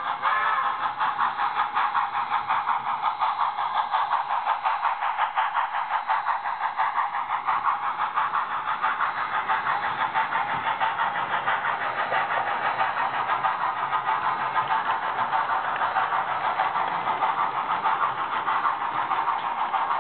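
Sound decoder of a Bachmann On30 2-8-0 model steam locomotive, a chip from a Bachmann HO 2-8-0, playing fast, steady steam exhaust chuffs through its small speaker as the model runs, the chuff rate set by the exhaust-rate CV 116 under test. A short whistle toot from the decoder dies away in the first half-second.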